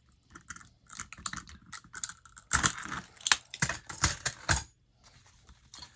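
Steel handcuffs being handled: quick metallic clicks and rattling, with a burst of louder clacks in the middle.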